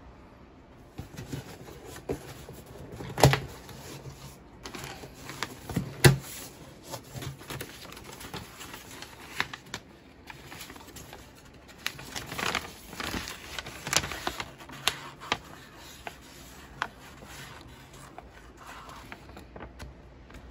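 A cardboard shipping box being opened by hand: irregular crackling, scraping and clicking of cardboard flaps and paper, with two sharp knocks about three and six seconds in.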